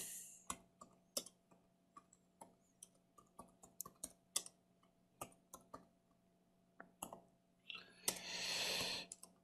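Computer keyboard being typed on, faint separate key clicks at an uneven pace, a few a second at most. A soft hiss about a second long comes near the end.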